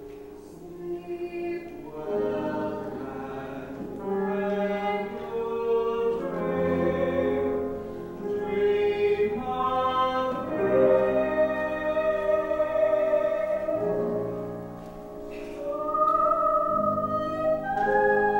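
A woman and a man singing a duet, holding long sung notes, with piano accompaniment.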